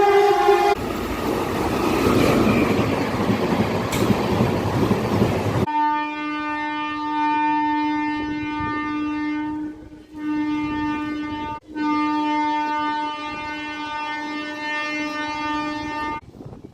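Indian Railways train horn and a train passing at speed. A horn note cuts off under a second in, followed by about five seconds of loud rushing wheel-and-rail noise as the train goes by. Then comes one long, steady horn blast of about ten seconds, broken twice briefly, which stops suddenly near the end.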